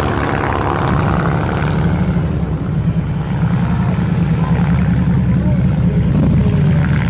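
SIAI-Marchetti SF-260 light aircraft's engine and propeller droning in flight. The sharper upper sound fades over the first second or two, leaving a loud, steady low drone with a rapid pulsing beat.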